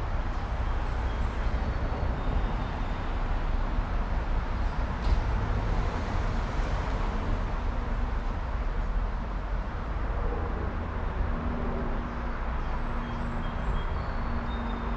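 Steady outdoor background noise with a heavy low rumble, and a single sharp click about five seconds in.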